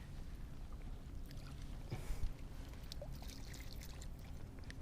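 Water trickling and splashing as a small brown trout is brought to hand in the stream, with a couple of sharp knocks about two seconds in.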